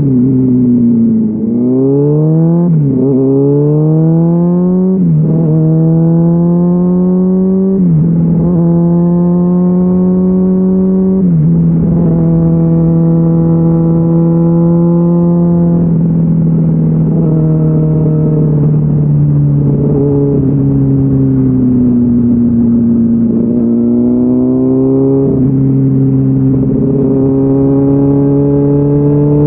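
Honda CBR600RR inline-four engine through a GPR Deeptone exhaust with the dB killer removed, pulling through several quick upshifts in the first ten seconds or so, its pitch climbing and dropping at each shift. It then runs at steady revs, eases off a little, and climbs again near the end.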